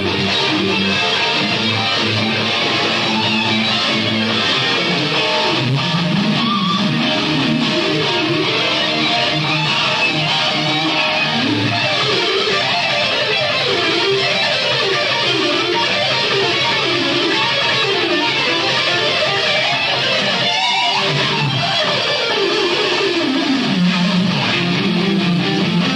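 Electric guitar music: fast runs of notes that climb and fall again and again, over steadier lower guitar notes.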